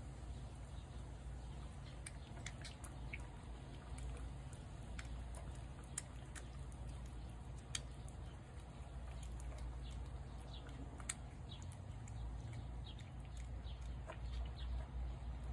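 A cat eating wet food from a plate: scattered short, sharp smacking and chewing clicks from about two seconds in, thicker near the end. A low steady rumble lies underneath.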